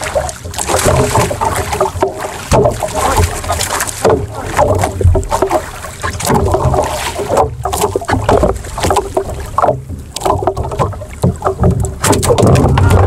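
Water splashing and slapping against a small wooden outrigger boat on a choppy sea, in irregular surges, with wind buffeting the microphone.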